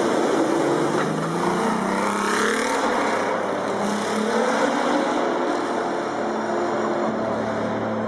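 Maserati 250F racing car's engine accelerating: its pitch rises about a second in, then it runs on at steadier revs, the sound filling an indoor exhibition hall.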